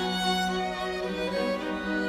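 Slow, calm background music with sustained bowed-string notes over a held low note.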